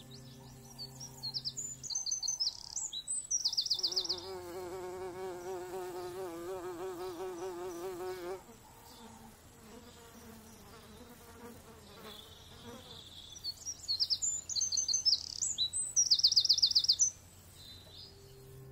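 A flying insect buzzing close by for about four seconds, its pitch wavering, then a fainter buzz. Songbirds chirp and trill in short phrases before and after it.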